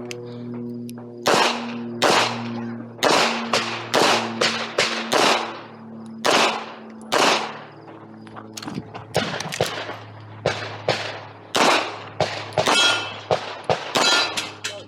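Handgun fired rapidly through a competition stage: about twenty sharp shots in quick strings and pairs, broken by short pauses. Several of the later shots are followed by a brief metallic ring.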